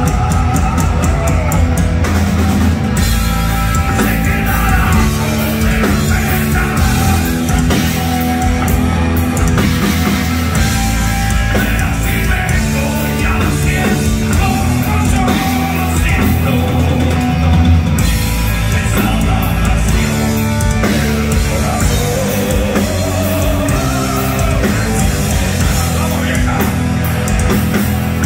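A heavy metal band playing live: distorted electric guitar, electric bass and a drum kit, loud and continuous.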